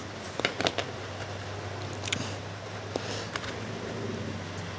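A few small sharp clicks and taps of a tiny metal screwdriver bit being handled and fitted into a mini ratchet's head: a quick cluster about half a second in, then single clicks about two, three and three and a half seconds in, over a steady low hum.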